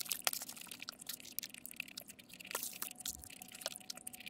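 Close-miked eating sounds: a paperboard fast-food box being handled with sharp little crackles and clicks, then a bite into a fried cheese stick near the end.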